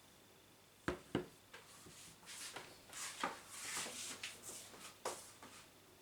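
Two quick knocks, then a few seconds of soft rubbing and rustling as things are handled close by, with another knock near the end.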